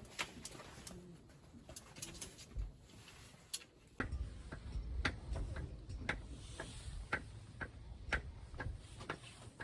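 A dove cooing, with many scattered sharp clicks; a low rumble comes in about four seconds in.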